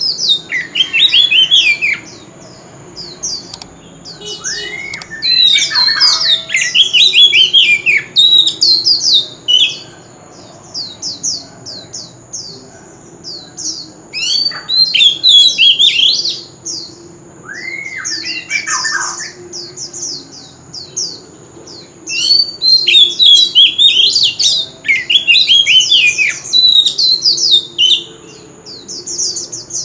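Oriental magpie-robin singing loud bouts of rapid, varied whistled notes, many of them falling in pitch. The phrases come in several bursts with short pauses between them.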